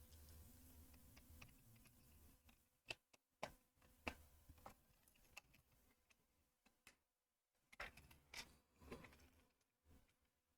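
Faint, sharp clicks of plastic Lego Technic pieces being handled and pressed together. There are three clearer clicks about half a second apart near the middle, a few softer ones, then another short run of clicks a few seconds later.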